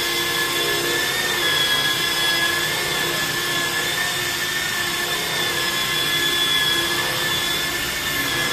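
Handheld electric car polisher running with a steady whine as its pad buffs the paint on a car's bonnet.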